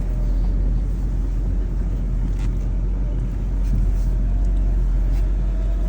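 Diesel truck engine idling, a steady low rumble.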